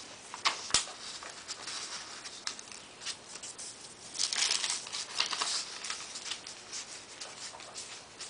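Sheets of paper and carbon paper rustling and sliding as they are handled and smoothed flat, with a louder stretch of rustling about four to five and a half seconds in.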